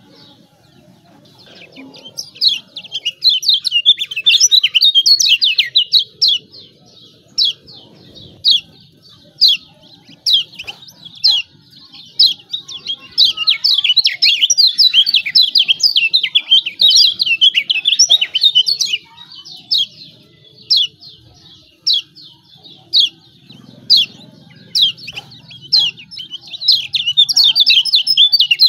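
Kecial kuning white-eye giving sharp 'ciak ciak' calls, single chirps breaking into three long runs of fast, excited chattering.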